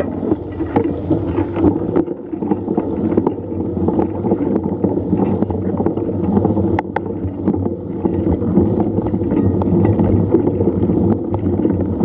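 Rushing water of a waterfall: a steady, loud rush with no pitch, with scattered small clicks and knocks over it.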